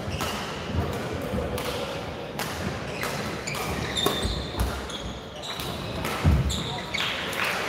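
A badminton rally: a run of sharp racket strikes on the shuttlecock about every half second to a second. Short high shoe squeaks on the court floor come in the second half, with low thuds of players landing.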